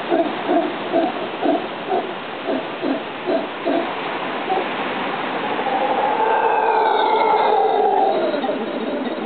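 Howler monkey calling: a run of deep rhythmic pulsed calls, about two a second, that dies away, then one long drawn-out howl that falls in pitch at its end.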